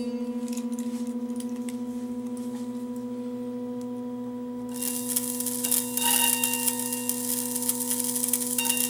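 A steady, pure humming drone with a slight fast pulse starts abruptly. About five seconds in, a hissing, rattling noise with a few higher ringing tones comes in over it.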